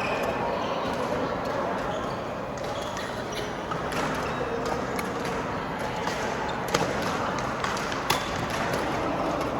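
Badminton rackets striking a shuttlecock during a rally: sharp clicks, the two loudest about seven and eight seconds in, over people talking in the background.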